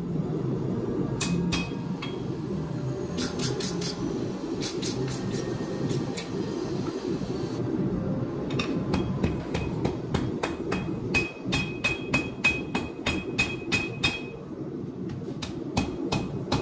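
Hand hammer forging a red-hot canister Damascus knife blade on a steel anvil, each blow sharp with a bright ring. There are a few scattered blows at first, then a steady run of about three strikes a second from a little past halfway, a short pause, and more blows at the very end, over a steady low rushing sound.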